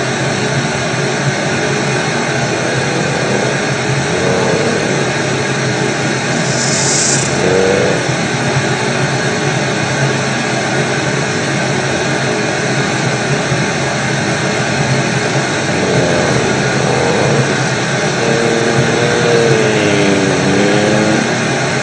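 Loud, steady white-noise static like a radio or TV with no signal. Faint wavering tones rise out of the hiss several times, with the longest, a sagging wavering moan, near the end.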